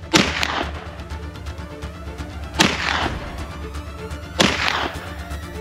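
Three shotgun shots, each a sharp crack with a short echoing tail, the second about two and a half seconds after the first and the third under two seconds later, over background music.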